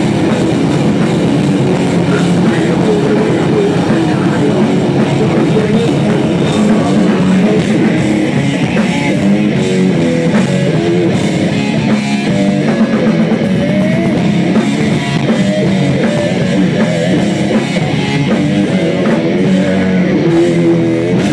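Live heavy metal band playing loud: electric guitar over a drum kit, without a break.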